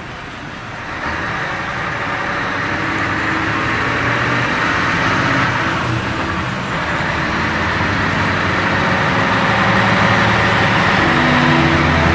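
Road vehicles of a heavy-haulage convoy and its escort cars approaching, engine and tyre noise growing steadily louder, with a low engine hum strongest near the end as the cars and truck draw close.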